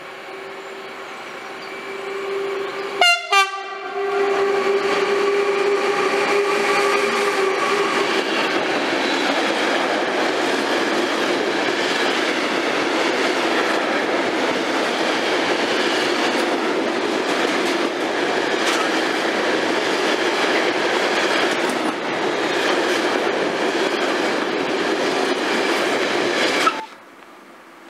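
Freight train running close past the platform: steady rail and wheel noise carrying a droning tone, with a brief loud burst about three seconds in. The noise cuts off abruptly near the end.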